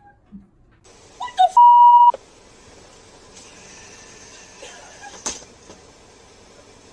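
A loud, steady electronic beep on one pitch, about half a second long, coming about a second and a half in, cutting in right after a brief voice fragment. Low background hiss follows, with one sharp click near the five-second mark.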